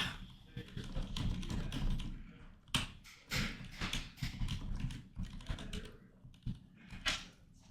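Typing on a computer keyboard, with irregular clicks that start suddenly.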